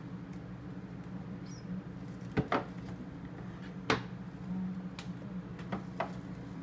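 Jars and food containers knocking and clinking against refrigerator shelves as someone rummages in an open fridge: several short sharp knocks, the loudest about two and a half and four seconds in. A steady low hum runs underneath.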